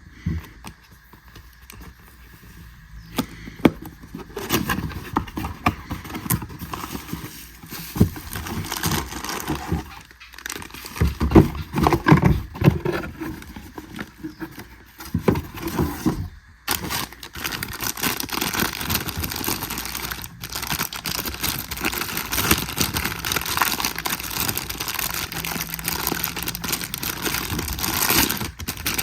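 Hands handling the packaging of a new spinning reel: irregular rustling, scraping and clicks, turning into a steadier crinkling rustle about halfway through.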